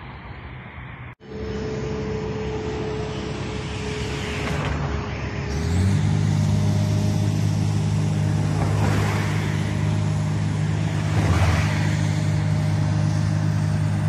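Diesel engine of a tracked excavator running steadily, a deep steady engine note that comes in strongly a little before halfway and holds, over a noisy background haze.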